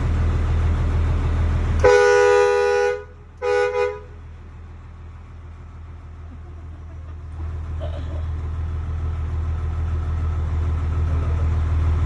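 Fire truck horn sounded twice: a loud blast of about a second, then a shorter one, over the low steady rumble of the truck's engine.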